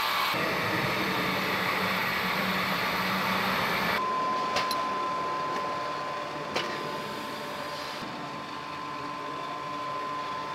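Assembly-hall machinery noise: a steady hiss and hum that changes abruptly about four seconds in to a quieter, steady high-pitched hum, broken by two sharp clicks.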